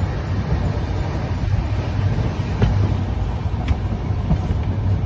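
Moving passenger train heard from inside the coach beside an open window: a steady low rumble of wheels on track with rushing noise, and a few sharp clicks about a second apart.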